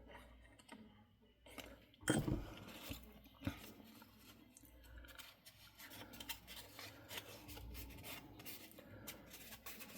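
Faint rustling and rubbing of cardstock handled by hand as it is folded and pressed into place, with a louder crinkle of paper about two seconds in.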